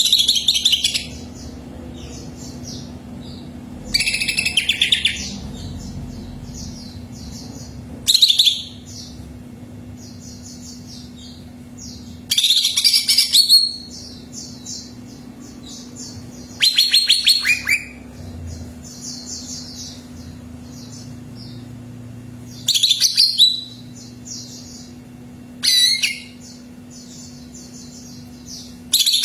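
Cucak ijo (greater green leafbird) singing: loud bursts of song about a second long, repeated every three to six seconds, with softer rapid chirping between them. A faint steady hum runs underneath.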